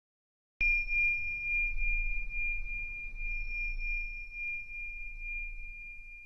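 A single high bell-like chime struck once about half a second in, ringing one steady tone that slowly fades, over a faint low rumble.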